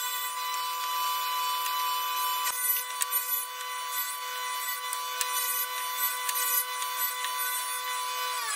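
Table saw running with a steady high whine while pine strips are fed through the blade, louder and rougher for a moment about two and a half seconds in as it cuts. Near the end the motor is switched off and its whine begins to fall in pitch as the blade spins down.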